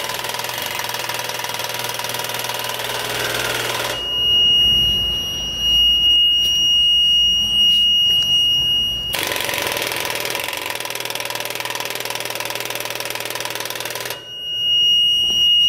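Starter solenoid on a Kohler 30 kW diesel standby generator chattering in a fast buzz of clicks while the engine fails to crank. It comes in two spells of about four to five seconds, with a steady high-pitched alarm buzzer between them and again near the end. The owner takes the clicking for a bad solenoid.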